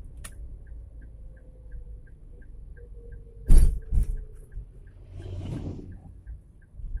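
Road noise heard from inside a car: a steady low rumble with an even ticking about three times a second. Two loud knocks come about three and a half and four seconds in, then a short rushing hiss.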